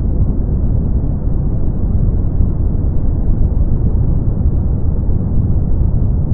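Brown noise: a steady, deep rumbling hiss, heaviest in the bass and with no treble, unchanging throughout.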